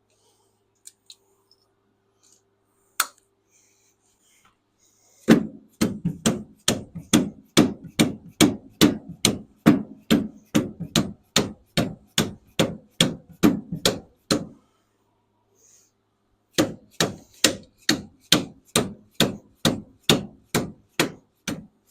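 Rapid hammer blows, about three a second, knocking the old axle seal of a Bobcat 7753 skid steer out of its bore. One lone knock, then two long runs of strikes with a short pause between.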